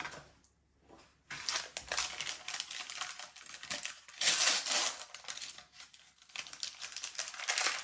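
A small blind-bag wrapper being crinkled and torn open by hand, starting about a second in, with the loudest crinkling around the middle.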